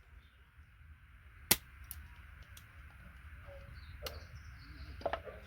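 Plastic computer connectors being taken apart by hand to free their gold-plated pins. There is one loud sharp snap about a second and a half in, then a few fainter clicks and a short cluster of knocks near the end.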